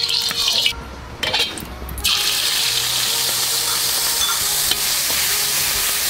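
Oil sizzling in a hot wok. About two seconds in, chopped ingredients with red chili go into the oil and it breaks into a loud, steady sizzle while a metal spatula stirs.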